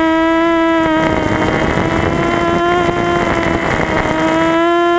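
Quadcopter's electric motors and propellers whining at a steady pitch, heard through the onboard camera. A rushing noise of wind or prop wash comes in about a second in and fades shortly before the end.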